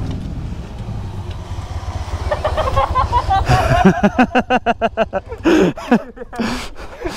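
Motorcycle engine running with a steady low rumble, joined about two seconds in by a higher, rapidly pulsing note.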